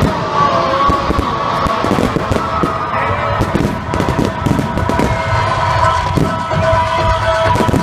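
Aerial fireworks going off in a rapid run of bangs and crackles, over music with long held notes.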